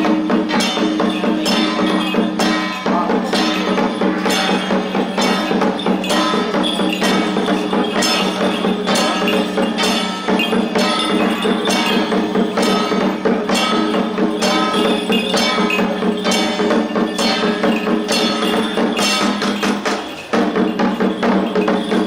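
Lion-dance troupe's percussion: a drum with gongs and cymbals beating a fast, steady rhythm, dense with strikes and ringing metal, accompanying the lion dance.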